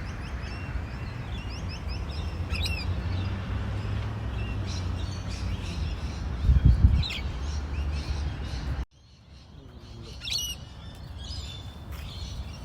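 Birds chirping and calling in short, high, sweeping notes, over a steady low rumble with a thump about six and a half seconds in; the rumble cuts out abruptly about nine seconds in while the chirps go on.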